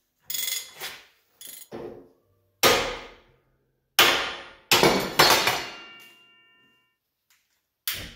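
Hammer blows on the steel of a John Deere 202 plow, about eight irregular strikes, the last loud one ringing on for over a second. The blows are to drive out stuck wheel bolts so the wheels can come off.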